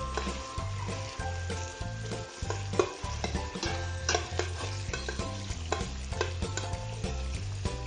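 A metal spoon stirs and scrapes in a stainless steel pot while sliced onion, garlic and ginger sizzle in oil, with sharp clicks of the spoon against the pot. Background music with a steady bass beat plays underneath.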